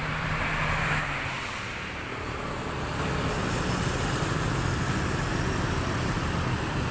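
Bus engine running steadily amid street traffic noise, the rumble growing a little louder about three seconds in.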